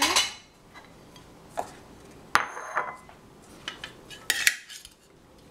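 Metal serving spoons knocking against a stainless steel bowl: a handful of separate clinks, one about two and a half seconds in ringing briefly.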